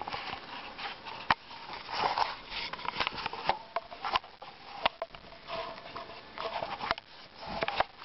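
Short, breathy sniffing sounds close to the microphone, mixed with rubbing and several sharp clicks from the camera being handled.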